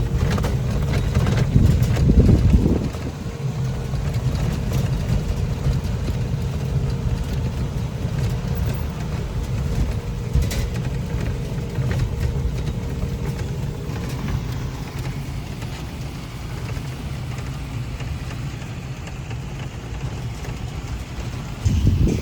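Road noise of a small electric rental cart being driven: a steady low rumble with a faint steady hum that fades out about two-thirds of the way through.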